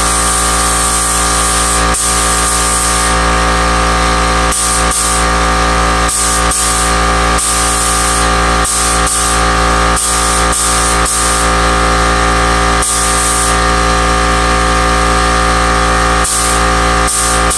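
Background electronic music, steady and loud, with bright high layers cutting in and out.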